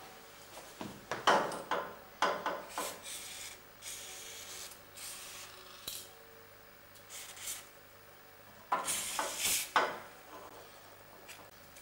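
Aerosol spray can hissing in several short bursts as lubricant is sprayed onto the steering chain and sprocket, mixed with scraping and handling noises. The loudest bursts come near the end.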